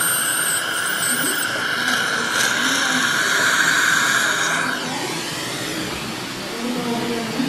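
Dental ultrasonic scaler and saliva-ejector suction running together during tartar removal: a steady hissing whine that fades away about five seconds in.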